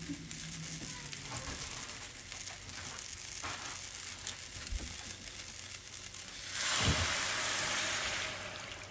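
Sausages sizzling in a frying pan, a steady hiss with small crackles. About six and a half seconds in, a louder hiss starts with a low thump, lasts about two seconds, then dies back down.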